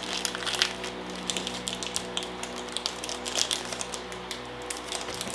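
Plastic wrapper of a Cadbury chocolate bar crinkling and crackling in a series of quick irregular rustles as it is torn open and peeled off the bar.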